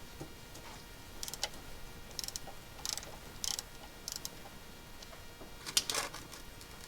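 Socket ratchet clicking in short, irregular bursts, about ten sharp clicks in small groups with the loudest pair near the end, as the oil drain plug is worked loose.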